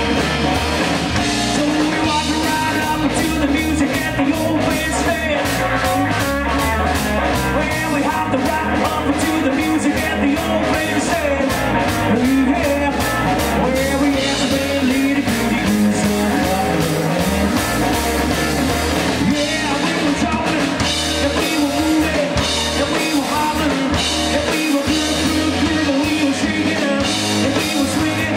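Live rockabilly band playing an instrumental stretch: drum kit keeping a steady beat over a stepping bass line, with a lead line that bends in pitch above it.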